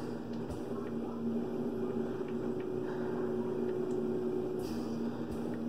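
Steady low machine hum with two held tones, the higher one dropping out about five seconds in, and a few faint ticks.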